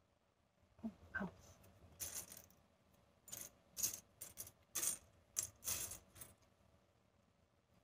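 Thin jingle shells clicking and clinking against each other as a hand sifts through a loose pile of them on a table, in several short clusters between about two and six seconds in. About a second in there are two short rising squeaks.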